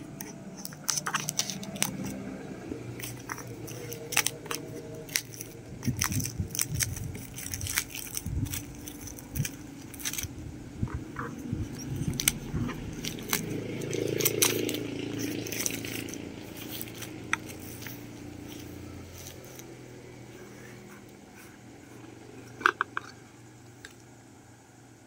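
Plastic shrink wrap crinkling and crackling as it is pulled off a hair-mask jar by hand, with many sharp clicks and crackles that thin out in the last several seconds, when the jar's lid is taken off.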